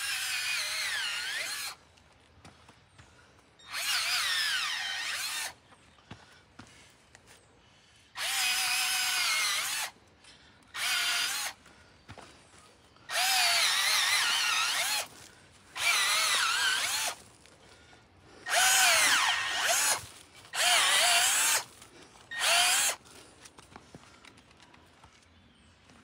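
Cordless drill with an auger bit boring planting holes in garden soil, run in about nine short bursts of up to two seconds each, its motor whine rising and falling in pitch as the bit digs.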